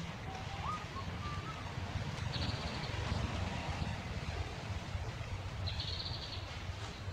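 Outdoor ambience: a steady low rumble, with a few short faint whistled bird calls in the first second and a half and two brief high rattling trills about three seconds apart.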